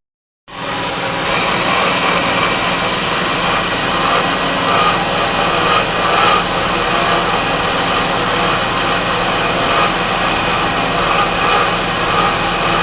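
Toyota HiAce 100-series 1RZ 2.0-litre gasoline inline-four engine running steadily with an abnormal noise that appeared after the fan belt was replaced and the belt squeal stopped; a dealer mechanic traced it to the starter system. The sound starts after a brief silence about half a second in.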